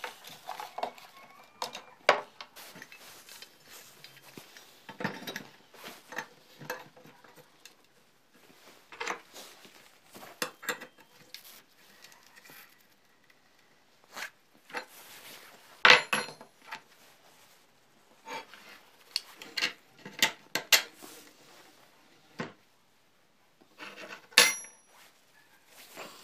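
Irregular metal clinks and knocks as a steel bracket and clamp are handled and fitted onto an angle grinder that is not running. About sixteen seconds in and again near the end come two sharper metallic clanks that ring briefly.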